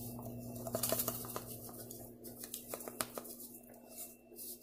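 Faint scattered light clicks and ticks over a steady low hum.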